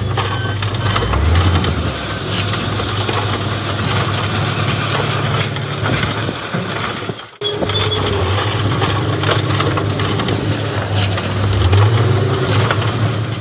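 Diesel engine of heavy earthmoving machinery running and working, its pitch shifting, with metal clattering over it. The sound breaks off abruptly for a moment about seven seconds in, then carries on.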